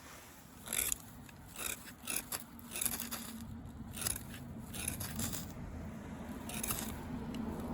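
Swedish military ferro rod struck repeatedly to throw sparks onto a feather stick: a series of short, sharp scrapes at irregular intervals.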